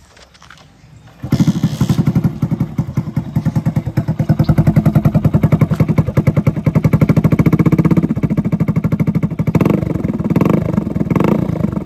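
Hero Splendor motorcycle's single-cylinder four-stroke engine, breathing through a newly fitted aftermarket silencer, starts about a second in and runs with a rapid, even exhaust beat, with a few louder bursts near the end.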